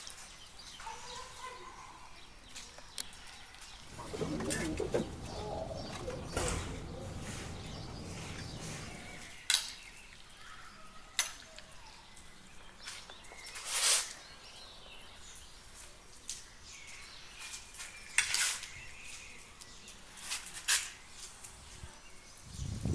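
Chickens clucking among scattered sharp clicks and knocks. There is a louder stretch of low, rough noise from about four to nine seconds in.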